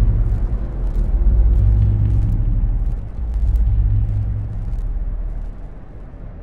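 Deep, steady low rumble with a hum of low tones beneath it, dipping briefly about three seconds in and fading toward the end.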